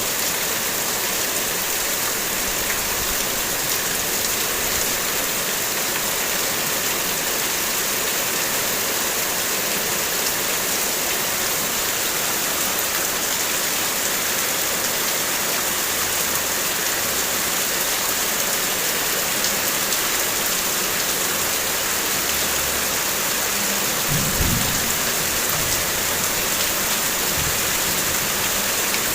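Heavy rain falling steadily in a dense, even hiss. A brief low thump about twenty-four seconds in.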